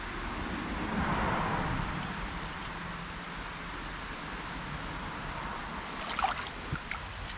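Steady outdoor background noise that swells for a couple of seconds about a second in, then light rustling and clicks near the end.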